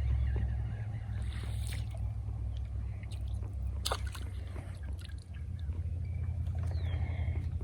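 Steady low hum from the fishing boat with water sloshing and gurgling, and one sharp click about four seconds in.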